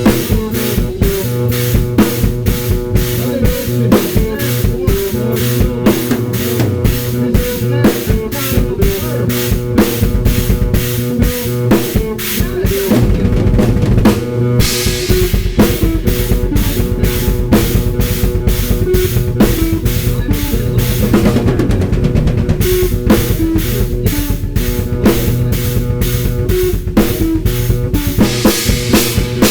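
Drum kit (Gretsch and Ludwig drums, Paiste cymbals) played in a fast, even stream of bass drum and snare hits over a guitar riff triggered from a Roland SPD sample pad. Cymbal crashes come about halfway through and again near the end.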